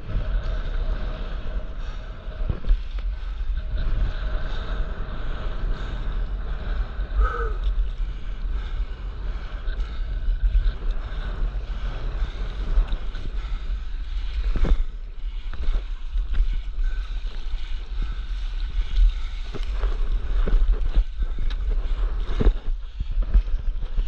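Wind buffeting the microphone with a steady low rumble over choppy sea water washing and lapping around a stand-up paddleboard. A few short splashes come near the end as paddling starts.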